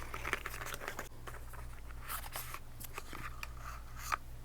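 Crinkling and rustling of cosmetic packaging being handled, with several sharp clicks and taps, one louder near the end, over a steady low hum.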